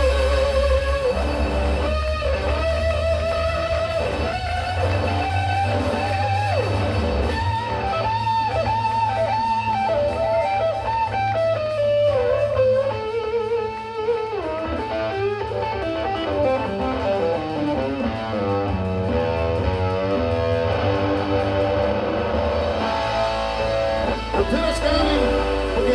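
Live blues-rock band playing, with an electric guitar taking a solo of bending notes and a fast descending run about halfway through, over bass and drums.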